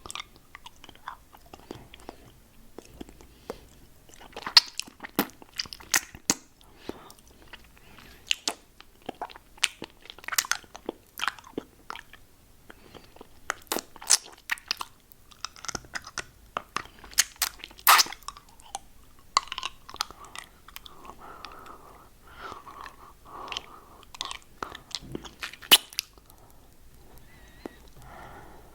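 Close-miked mouth sounds of a lollipop being licked, sucked and crunched: irregular sharp clicks and wet smacks, with a softer stretch of wet sucking about two-thirds of the way in.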